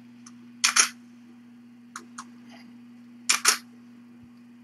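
Camera shutter firing twice, each shot a quick double click, about two and a half seconds apart, as photos of the kittens are taken. A steady low hum runs underneath.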